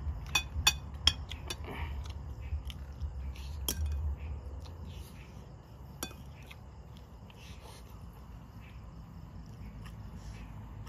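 Metal spoon clinking and scraping against a ceramic plate while eating: a quick run of sharp clinks in the first second and a half, then single clinks about four and six seconds in.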